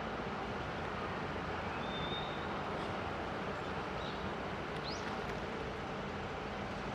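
Steady outdoor city ambience: a constant hum of distant traffic, with a couple of faint high chirps about two seconds in and again near five seconds.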